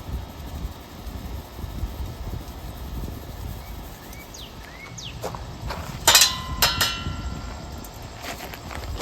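Wind rumbling on the microphone, with a few sharp metallic clinks and a brief ringing tone about six seconds in, from the metal gear used to strain the ashes. Short bird chirps come now and then.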